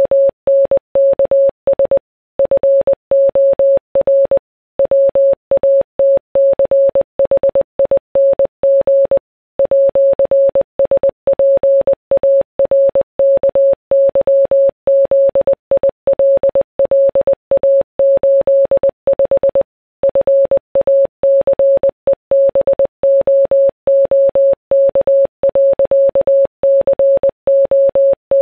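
Morse code: a single mid-pitched beep keyed on and off in quick dots and dashes, with short pauses between groups.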